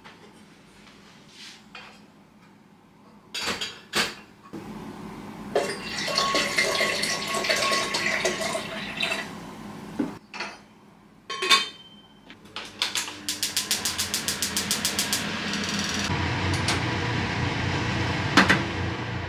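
Pots and pans clanking as they are handled, then water poured from a plastic bottle into an enamel kettle. About two-thirds in, a gas stove's igniter clicks rapidly for a couple of seconds and the burner catches, leaving a steady flame rush under the kettle, with one knock near the end.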